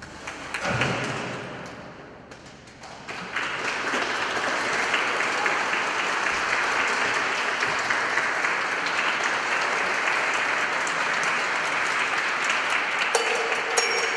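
A last percussion stroke rings and fades about a second in. From about three seconds in, an audience applauds steadily.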